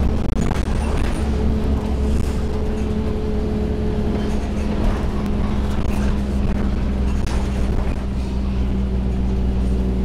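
Orion VII CNG bus with its John Deere engine and Voith transmission, heard from inside the passenger cabin, running with a steady low drone and a steady whine over it that comes in about a second in. Faint rattles and clicks from the cabin are scattered through it.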